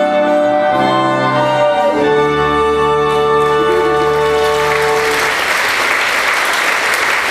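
Orchestral accompaniment holding the final sustained chords of a show song, which stop about five seconds in. Audience applause starts shortly before the music ends and carries on.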